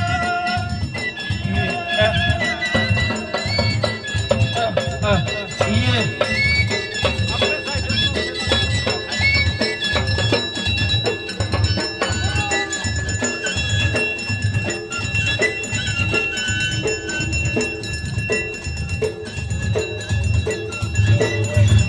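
Ahwach folk music: a steady beat of low drum thumps with a metallic ringing percussion over it, and men's voices chanting in gliding phrases during the first half.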